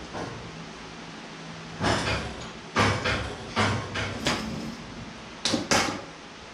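Metal parts clanking and knocking as they are handled and fitted at the front of a hot rod chassis. Roughly eight irregular knocks start about two seconds in, with the last two close together near the end.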